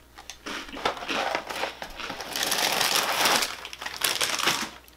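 A plastic cereal bag crinkling as it is lifted and tipped upside down, with many small crackles, loudest about two and a half to three and a half seconds in.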